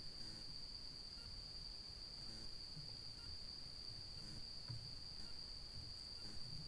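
An insect's continuous high-pitched trill, one steady unbroken note, with faint low rustling and soft thumps underneath.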